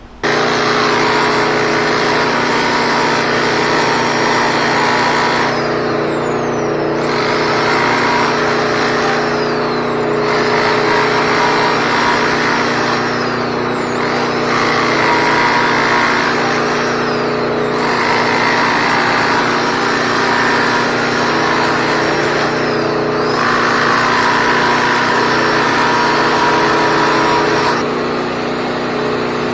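Concrete floor grinder running steadily with its motor hum, the grinding noise swelling and dropping every few seconds as it works the floor.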